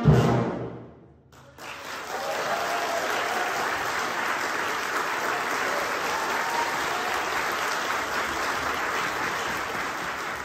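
The last chord of a wind orchestra dies away, then after a brief pause the audience breaks into steady applause.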